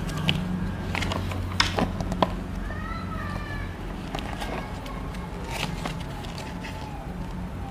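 Paper instruction booklet being unfolded and handled: irregular soft rustles and crinkles with a few sharper paper snaps, over a steady low room hum.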